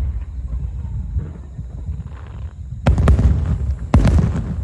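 Fireworks shells bursting in loud booms, a close pair about three seconds in and another a second later, with a low rumble carrying on between the reports.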